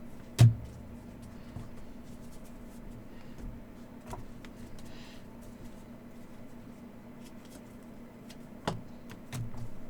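Quiet handling of trading cards over a steady low hum, with a sharp knock about half a second in and another near the end.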